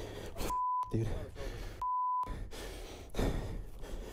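Two censor bleeps, each a steady 1 kHz tone about half a second long, about half a second and two seconds in, blanking words of a man's angry outburst; bursts of his voice and a rushing noise fill the rest.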